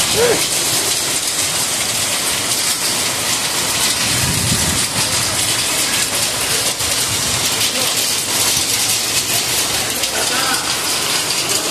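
Heavy rain pouring down on paved ground, a dense, steady hiss of drops striking the surface.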